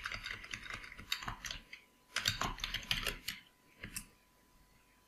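Typing on a computer keyboard: quick runs of keystrokes with short pauses, thinning out about four seconds in.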